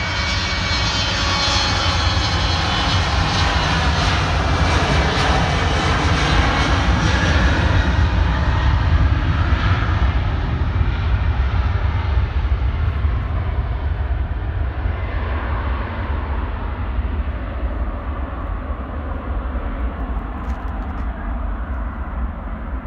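Jet airliner's engines on the runway: a loud, even jet noise with a deep rumble that builds for several seconds, then slowly fades as the aircraft moves away, its high hiss dying out first.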